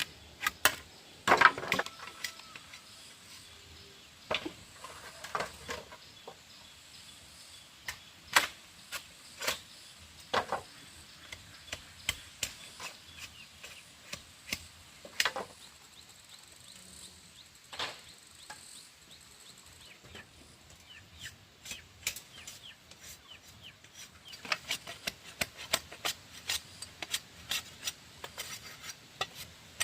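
Wood being struck and chopped by hand. Sharp knocks come at irregular intervals, some alone and some in quick clusters, with a faint steady hiss under them.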